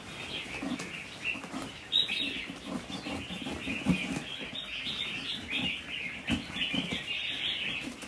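Many red-whiskered bulbuls chirping continuously, with wings fluttering as the birds are shooed from cardboard boxes into a wire cage. A few short knocks come about two, four and six seconds in.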